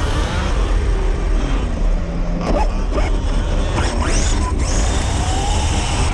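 Large RC car driving fast under a steady, heavy low rumble, with scattered clicks and a few short whines gliding up and down in pitch as the throttle changes.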